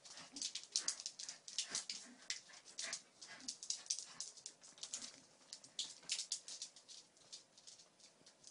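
A schnauzer and a puppy playing together: a busy run of quick, irregular, high-pitched scuffling noises, several a second.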